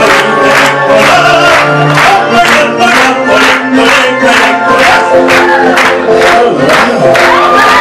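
A singer performs over loud backing music with a steady beat played through a PA speaker, while the audience claps along.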